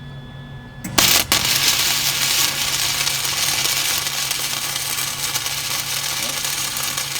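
Lincoln Electric MIG-Pak 180 wire-feed welder striking an arc about a second in, then a continuous crackling, sizzling arc as a weld bead is run along the joint, over the machine's low steady hum.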